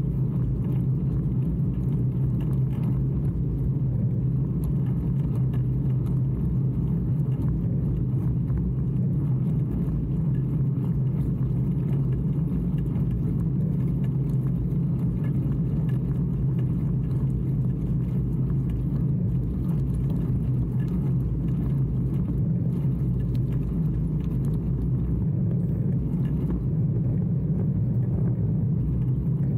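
Steady low rumble of a bicycle rolling along a paved road: tyre noise on asphalt and wind on the bike-mounted camera's microphone, even throughout.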